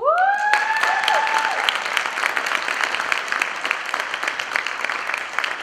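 Audience applauding and cheering, with one high whoop that rises in pitch right at the start.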